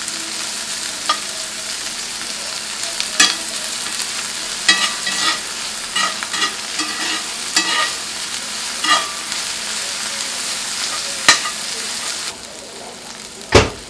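Onions and sweet peppers sizzling as they stir-fry in hot oil in a cast-iron skillet, with scattered light clicks and taps. The sizzle drops about a second before one heavy thump near the end.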